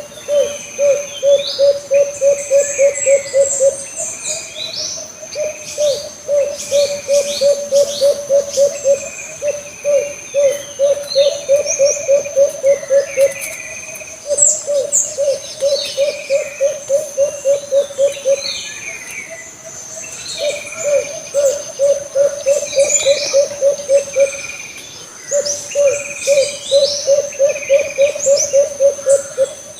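An alimukon dove calling: a fast run of low hoots, about five a second, lasting three to four seconds, repeated over and over with short pauses. Other birds chirp high above it, and a steady high insect drone runs throughout.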